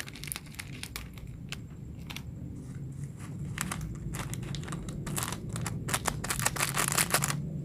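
Plastic seasoning sachets crinkling and tearing as they are opened and emptied into an instant noodle cup: a run of sharp rustles that crowd together and grow louder in the last few seconds.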